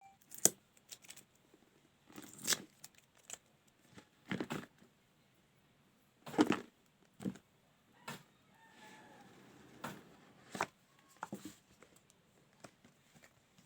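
Irregular handling noises of a phone being unboxed: the box and its packaging rustling, crinkling and tearing, with sharp clicks and taps.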